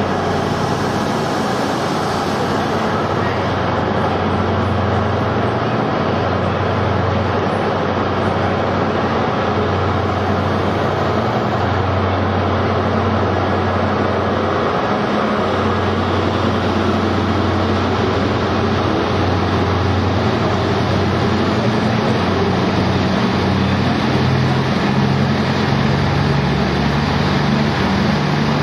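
Diesel passenger train's engines running steadily as it pulls out along the platform: a constant low drone, with a higher engine note coming in and rising over the last few seconds.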